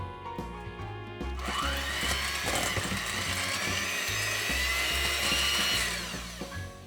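Electric hand mixer running for about four and a half seconds: its motor whine rises as it spins up about a second and a half in, holds steady, and dies away near the end, over background music.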